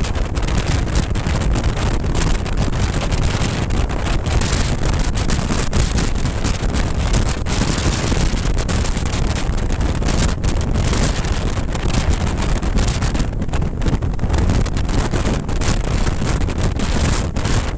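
Steady, heavy wind buffeting on the microphone of a camera on a moving BMW R1200 Adventure motorcycle, with the bike's engine and road noise underneath.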